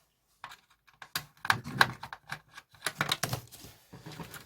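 Irregular clicks, taps and knocks of small plastic and metal parts as a cassette tape recorder's circuit board is opened up by hand, starting after a brief moment of dead silence.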